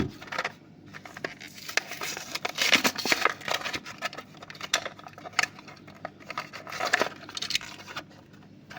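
Hot Wheels blister card being opened by hand: plastic blister and cardboard crinkling and tearing in irregular crackles and clicks.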